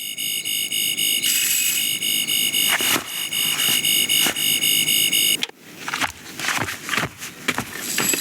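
A toy's high electronic tone, pulsing about four times a second, cuts off suddenly about five and a half seconds in. Light clicks and handling sounds follow.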